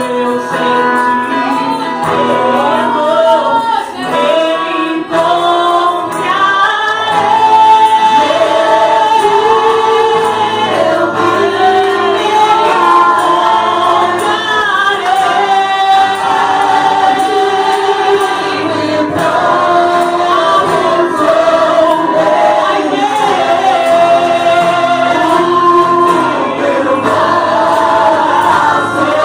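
A worship choir singing a gospel song, several voices together on a sustained, moving melody.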